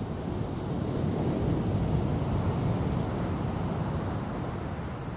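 Ocean surf rushing as a big wave breaks and throws spray, a deep steady roar that swells about two seconds in and then eases, with wind buffeting the microphone.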